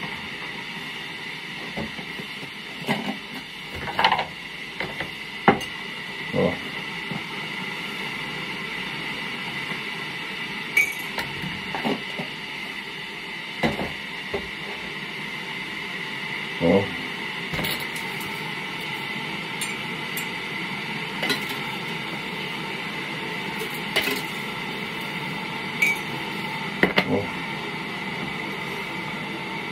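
Dishes and utensils clinking and knocking now and then as they are handled on a kitchen counter, a dozen or so separate knocks spread through, over a steady background hum.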